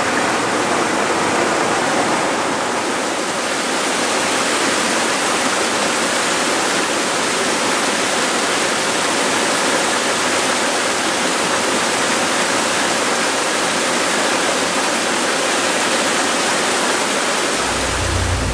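Water gushing through the open paddles of a canal lock's top gates into the chamber, a steady loud rush as the lock fills. A low rumble joins near the end.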